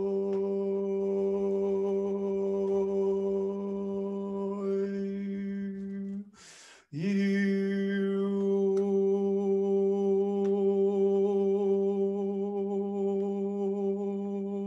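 A man's voice toning one long steady note, held for about six seconds, then a quick audible in-breath about six seconds in, then the same note held again at the same pitch.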